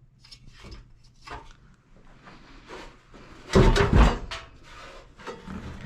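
Clicks and knocks of a seized fan coil blower motor being handled, with a louder pair of clunks about three and a half seconds in.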